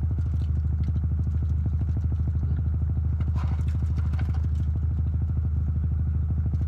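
Car engine idling, heard from inside the cabin as a steady low hum. Faint crinkling of burger wrappers and eating sounds come through about three to four seconds in.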